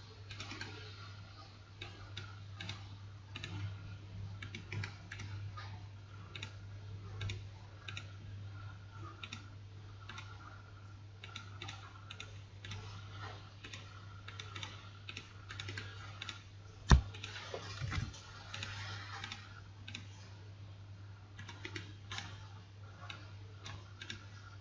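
Soft, irregular clicking and tapping of a computer keyboard and mouse over a steady low hum. A single sharp knock stands out about two-thirds of the way through.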